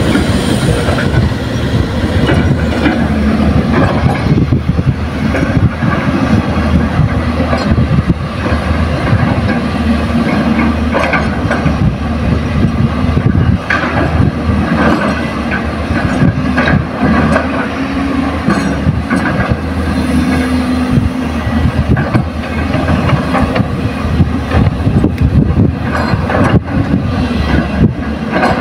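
Diesel engines of excavators and dump trucks working, a heavy steady rumble whose pitch rises and falls with load, with scattered clanks and knocks of machinery.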